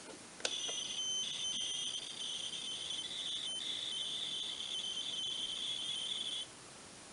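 Commodore tape loading sound played from a Tapuino tape emulator: a high-pitched, shrill data tone with a shifting, warbling texture. It starts just after a click about half a second in and cuts off suddenly about a second before the end.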